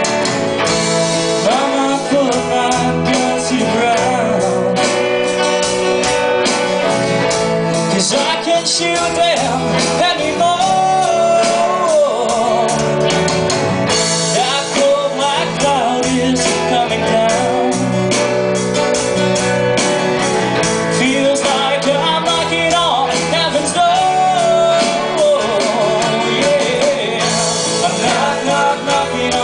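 Live band playing a song: a man sings lead over a strummed acoustic guitar, a second guitar and a drum kit keeping a steady beat.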